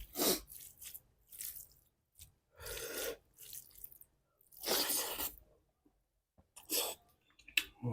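A person eating close to the microphone, with wet chewing and slurping of food in about six short bursts and pauses between them.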